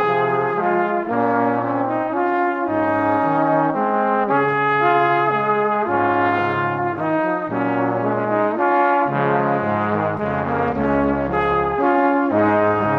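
Instrumental background music with a brass-sounding lead over a bass line that moves step by step, the notes changing every half second or so.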